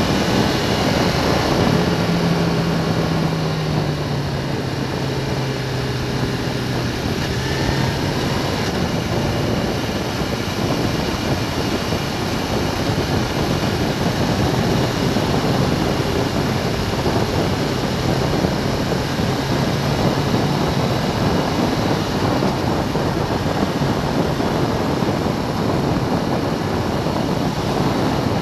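Motorcycle riding on a rough, patched road: a steady rush of wind and tyre noise, with the engine's note showing through in the first several seconds, stepping down in pitch, and again faintly in the middle.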